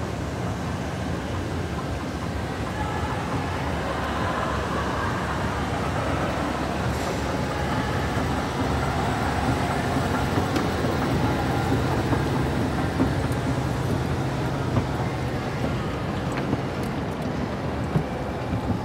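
Montgomery escalator running under a rider: a steady mechanical hum of the moving steps and drive. A sharp click near the end as the rider steps off onto the landing plate.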